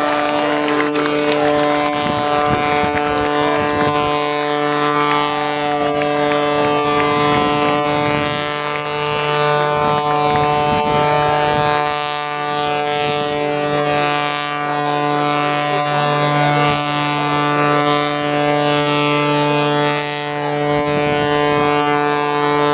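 Steady drone of a red aerobatic biplane's piston engine and propeller in flight, held at one even pitch.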